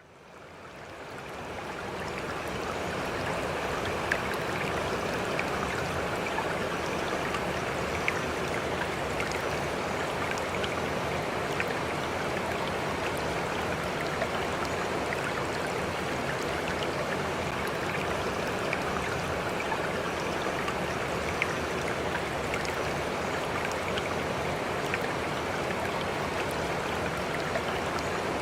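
Steady rushing water like a flowing stream, fading in over the first couple of seconds, with scattered faint drip-like ticks.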